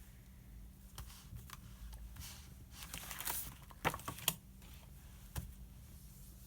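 Study-desk sounds: paper rustling for about a second, then a few sharp clicks or taps, two close together and one a second later.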